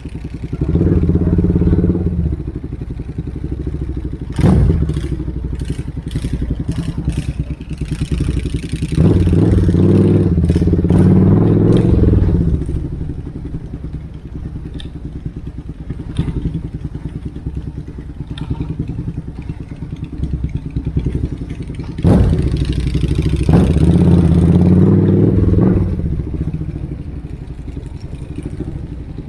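Motorcycle with a loud exhaust running and revving up hard three times, settling back to a lower steady note in between. A run of sharp cracks comes a few seconds in.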